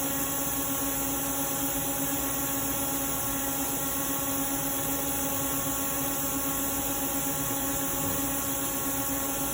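Steady machine hum with several fixed tones, unchanging throughout; no clicks or other distinct sounds stand out.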